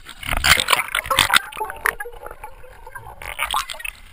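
Sea water splashing and gurgling right at the microphone, in irregular bursts, busiest in the first two seconds and again a little after three seconds in.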